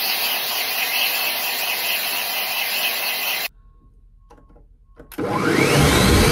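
Hair dryer blowing steadily, cut off suddenly about three and a half seconds in. After a short lull with a few faint clicks, a food processor starts blending a jug of red vegetables for soup, its motor whine rising in pitch as it speeds up.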